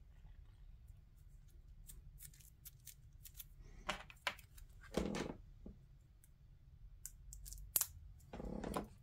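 Game cards being handled and flipped through: faint scattered clicks and light rustles, with a few louder snaps and shuffles in the second half.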